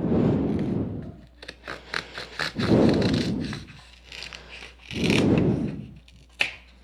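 Knife sawing through cardboard in three drawn-out scraping strokes, with small clicks and taps between them.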